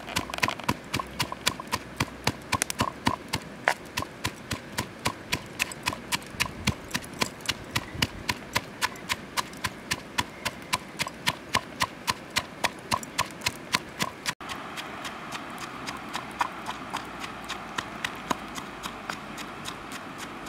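Pestle pounding red chilies and coarse salt in a stone mortar: sharp, even knocks at about three to four a second. After a cut about two-thirds through, the strikes are softer.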